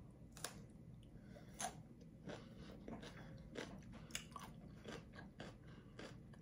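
A person chewing raw cucumber slices topped with tuna: faint, irregular crunches.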